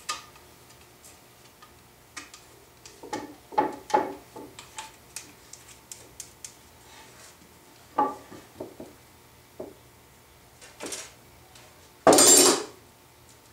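Sipo mahogany boards knocking and clacking against one another and the workbench as glued-up strips are stacked and handled, in scattered knocks. Near the end comes a louder, noisier sound lasting under a second.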